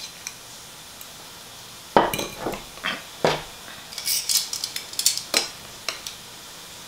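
Metal kitchen tongs clinking and knocking against a ceramic bowl while picking up pieces of cooked chicken: scattered light clicks, most of them from about four to five and a half seconds in.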